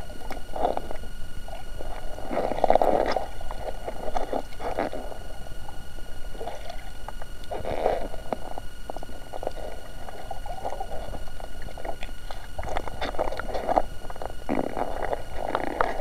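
Muffled underwater gurgling and sloshing from a snorkeler swimming close to a submerged camera, in irregular bursts, with bubbles. A faint steady high whine runs underneath.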